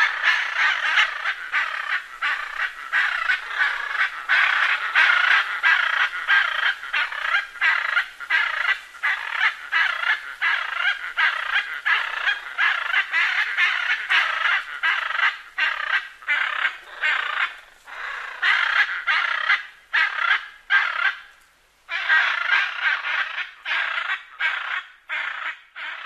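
Macaws squawking: a rapid, unbroken run of loud calls, about two or three a second, with a short pause a few seconds before the end before the calling starts again.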